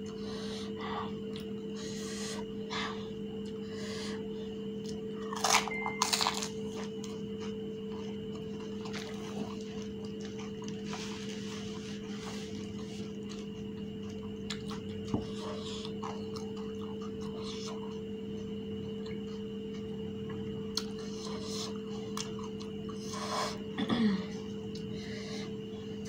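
Crunching and chewing of fuchka, the crisp hollow fried shells of pani puri, in scattered short bursts, the loudest about five to six seconds in and again near the end, with clicks of a spoon as shells are cracked and filled.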